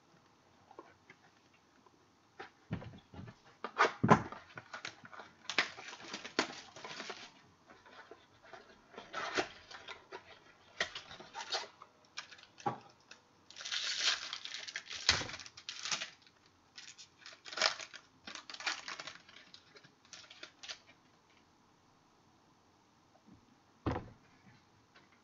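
Football trading cards being handled by hand: irregular bursts of rustling and sliding with sharp clicks, then one tap near the end.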